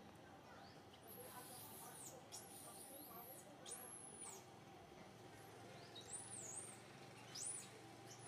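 Faint, very high-pitched squeaking calls from an animal, several in a row, each sliding up and down in pitch.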